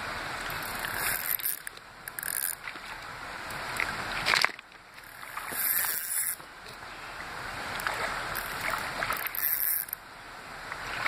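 Fishing reel working against a hooked carp on light line: the reel's mechanism runs in stretches that build over a second or two and then break off.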